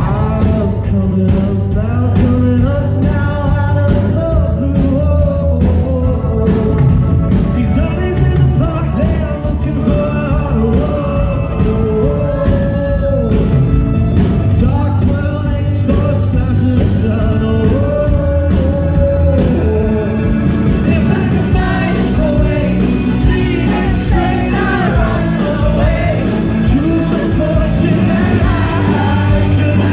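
Live rock band with a male lead singer: a steady drum beat under the sung melody, the band growing fuller and brighter about two-thirds of the way in.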